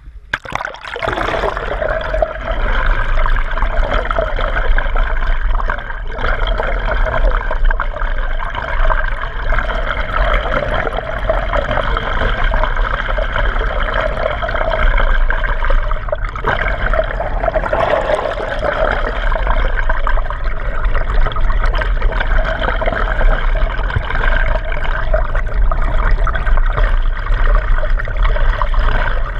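Water rushing over an action camera's waterproof housing held underwater from a moving boat: a steady, muffled wash with a low rumble, starting about a second in as the camera goes under.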